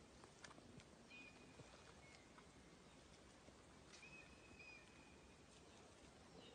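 Near silence, broken by two faint, thin, high whistled calls: one about a second in and a longer one about four seconds in.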